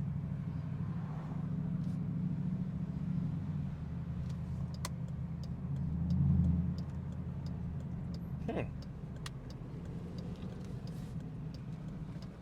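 Dodge Durango R/T's V8 engine running steadily while driving, with a brief swell in engine sound about six seconds in.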